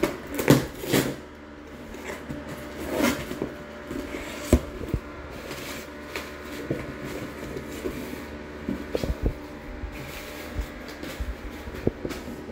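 Cardboard shipping box being torn open by hand: loud rasping tears of the taped flaps in the first second and again about three seconds in. Then paper rustles, cardboard handling sounds, and scattered sharp knocks as a boxed toy set is put down on a wooden table.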